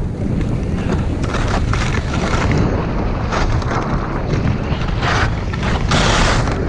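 Wind buffeting the microphone as a loud, steady rumble, with brief hissing surges about five and six seconds in.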